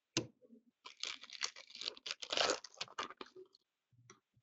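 A sharp tap, then a foil trading-card pack wrapper being torn open with crinkling from about a second in, lasting about two and a half seconds.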